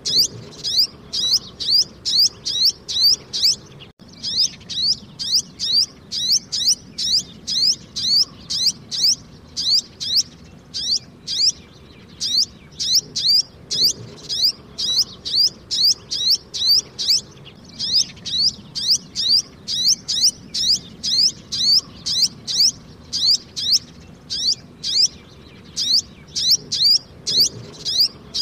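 Sunbird chirping: a rapid series of short, high, sharp chirps, about three a second, in runs broken by a few brief pauses.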